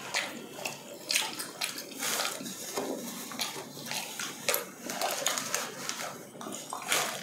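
Close-up eating-by-hand sounds: irregular wet clicks, smacks and crackles, with disposable plastic gloves rustling as they are taken off.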